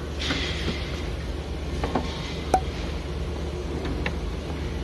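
Scattered light clicks and knocks from the latch area of a car hood, over a steady low hum. One sharper click comes about two and a half seconds in.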